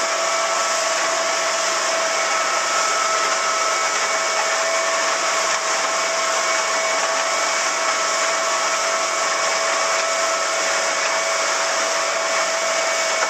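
Small motorboat's engine running steadily under way, a constant whine over a strong rush of wind and water.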